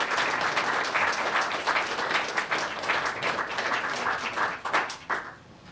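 Audience applauding, a dense patter of clapping that thins out and dies away near the end.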